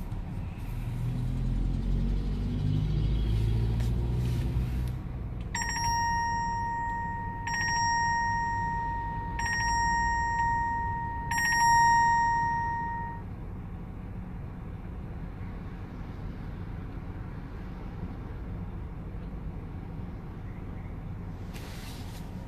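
A ringing chime strikes four times about two seconds apart, each tone held, the last a little longer, over the low rumble of the car in motion. The rumble swells in the first few seconds.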